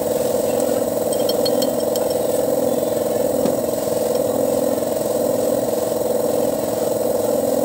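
Foton dump truck's diesel engine idling steadily, with a few light metallic clinks about a second and a half in and a single knock about halfway through.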